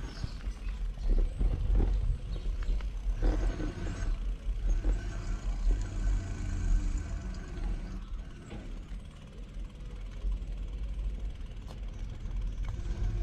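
Vehicle traffic noise over a steady, uneven low rumble.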